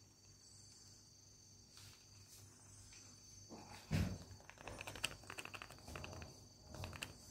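Cat chattering at prey overhead: a run of rapid clicks and short chirps starting about four and a half seconds in, after a single low thump, over a steady high drone.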